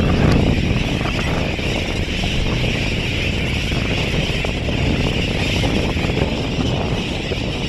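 Wind buffeting a phone's microphone: a steady, uneven rumbling noise with a constant hiss above it.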